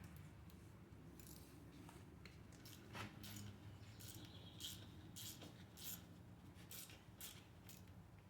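Faint, scattered clicks and light metallic clinks of hand tools working on an engine's bolts, irregular rather than a steady ratchet rhythm, over a low steady hum.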